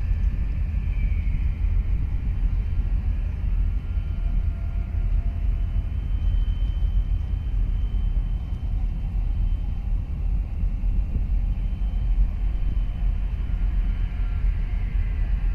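Wind buffeting the microphone: a steady low rumble that flutters in level, with no distinct events.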